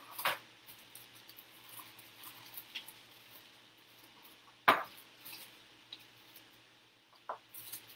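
A metal measuring cup scooping mini marshmallows from a plastic bag, with a sharp clink a little past halfway, a smaller knock near the end, and soft rustling between.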